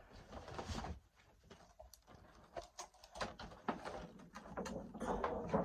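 Packaging and kit items being handled: rustling with scattered light knocks and clicks, busiest near the start and again near the end.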